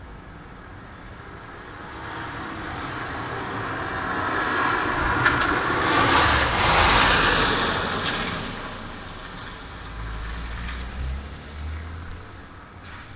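A car driving past on the street: its tyre and engine noise swells, is loudest about halfway through, then fades away, followed by a faint low rumble.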